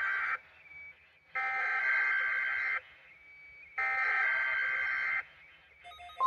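Emergency Alert System SAME header sent from an EAS encoder: bursts of buzzing digital data tones, each about a second and a half with about a second's pause between. The tail of one burst is followed by two full bursts. Near the end, the steady 1050 Hz NOAA Weather Radio warning alarm tone begins.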